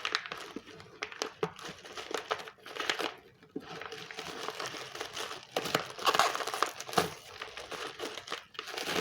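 Plastic shrink-wrap film crinkling and rustling as it is wrapped around a small package, with irregular crackles throughout.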